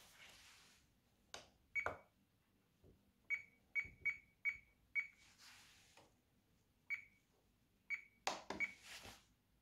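RadioMaster TX16S transmitter giving its key beeps as its menu buttons are pressed: about eight short, high beeps of one pitch at uneven spacing. A few sharp plastic clicks from the keys come among them.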